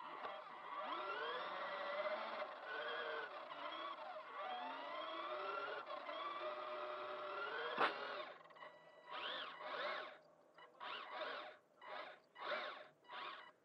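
Electric motor and gear whine of a Kyosho Mini-Z Overland H2 Hummer RC car, its pitch sliding up and down with the throttle. A sharp click about eight seconds in, then a run of short throttle blips, each a quick rise and fall in pitch.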